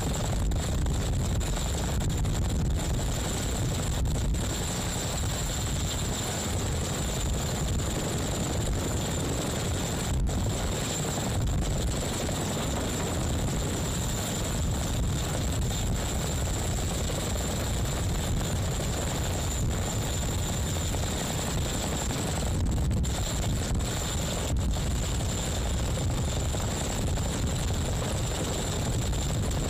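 Helicopter hovering low overhead during a sling-load hookup. Its rotors and engines make a steady, heavy noise with a thin high whine above it.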